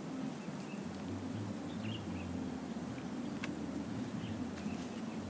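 Outdoor ambience: a steady low hum, with faint bird chirps now and then and a couple of short, sharp clicks.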